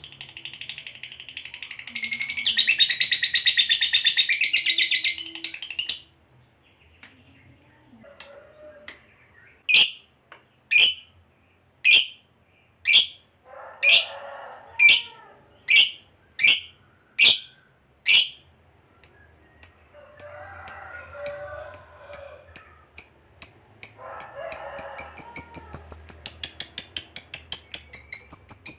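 Fischer's lovebird chattering: a dense, rapid high trill for the first few seconds, a short pause, then sharp single high calls about once a second that quicken after the middle into a fast, continuous long trill (ngekek) near the end.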